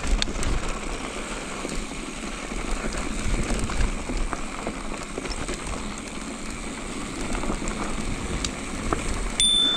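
Mountain bike tyres rolling over dry dirt and loose rock, with a steady crunchy hiss and many small clicks and knocks. Near the end a handlebar bell rings once, bumped by accident, and keeps ringing.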